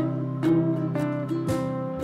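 Background music: acoustic guitar plucking a melody over ringing chords.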